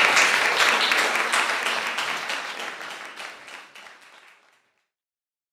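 Small audience applauding, the clapping fading steadily away and giving way to silence about four and a half seconds in.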